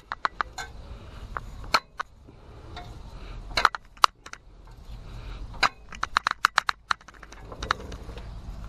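Scattered sharp clicks and light knocks from handling, with a quick run of about eight ticks a little past the middle, over a low steady rumble.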